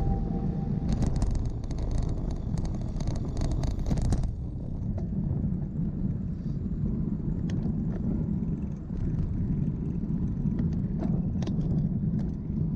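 Wind and road rumble on the microphone of a moving road bicycle. From about a second in, a rapid clicking lasts some three seconds.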